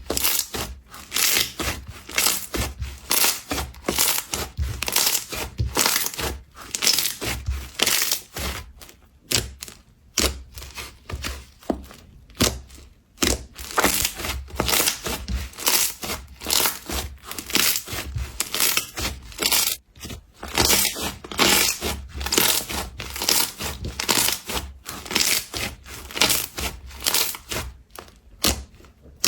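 Slime being squeezed, poked and stretched by hand, giving a dense, irregular run of wet crackles, clicks and pops from trapped air, with a few brief pauses.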